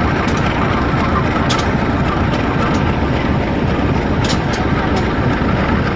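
Diesel-electric locomotive idling at a standstill: a steady, heavy rumble, with a few faint clicks on top.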